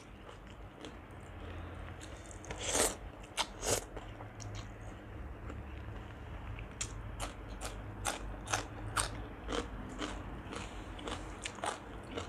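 Chewing of crunchy green papaya salad with rice noodles: an irregular run of crisp crunches and wet mouth clicks, loudest a few seconds in.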